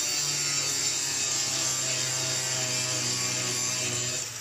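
Angle grinder grinding steel seat-mount supports off a minibus floor: a steady, harsh grinding that eases off slightly near the end.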